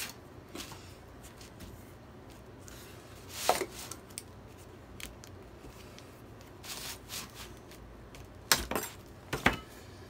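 Scattered sharp knocks and clicks of a flat metal hand tool and small wooden scrap blocks being handled on a wooden workbench. The loudest knock comes about three and a half seconds in, with a quick cluster of knocks near the end.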